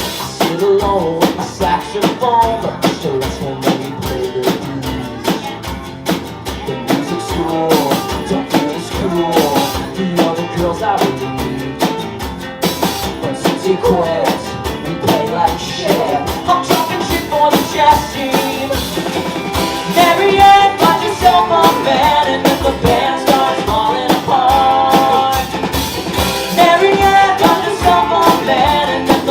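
Live rock band playing a song: guitars and a drum kit with singing over them, the guitar line growing busier and higher in the second half.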